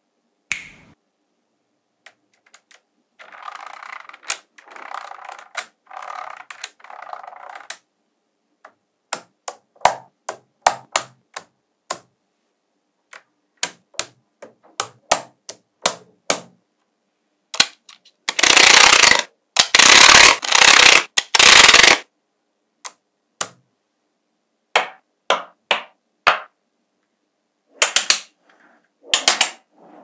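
Small magnetic balls clicking and snapping together one by one as a structure is built, sharp single clicks throughout. There is a softer rattle a few seconds in, and a louder, longer rattle of many balls moving together for about four seconds past the middle.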